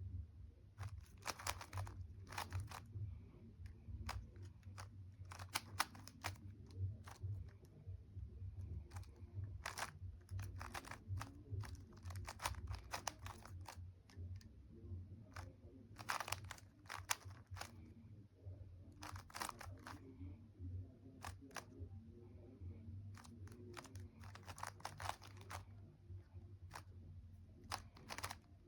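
Rubik's cube being turned by hand during a solve: quick runs of plastic clicking and clacking as the layers turn, with short pauses between runs, over a low steady hum.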